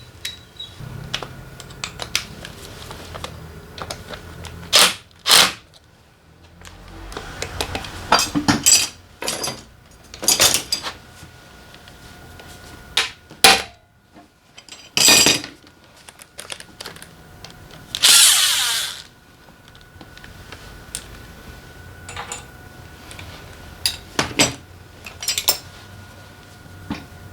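A power tool run in repeated short bursts, about ten in all, with one longer burst two-thirds of the way through and small metallic clicks in between, as bolts are undone during engine disassembly on a Daelim Citi Ace 100 motorcycle.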